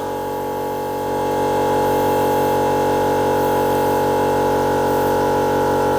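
Air compressor running steadily as it pumps a car tyre up to 2.5 bar; the hum gets louder about a second in.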